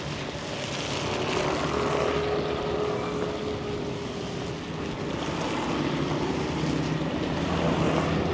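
Street traffic: motor vehicles passing in a steady rush of engines and tyres, with an engine hum held for a few seconds early on. It swells about a second in and again near the end.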